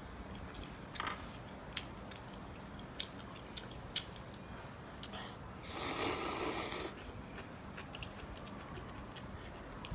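A man eating sweet potato noodles (suanla fen) with chopsticks: chewing and mouth smacks with small clicks throughout, and one long, loud slurp about six seconds in.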